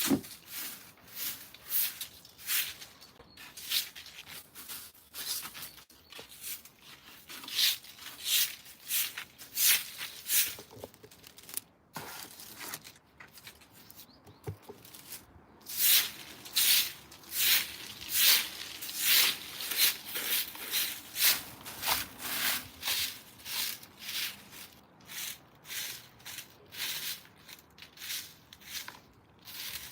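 Footsteps crunching on dry ground in a steady walking rhythm, a little under two steps a second.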